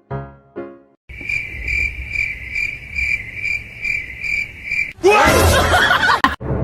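A few piano notes die away. Then a high, steady trilling tone pulses about twice a second for nearly four seconds. About five seconds in it cuts to a louder, harsh, squealing noise that stops suddenly near the end.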